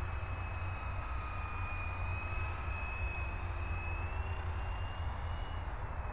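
Blade 120 SR micro RC helicopter in flight, its electric motor and rotors giving a thin steady whine. The whine rises slightly in pitch about four seconds in and dips again near the end, over a steady low rumble.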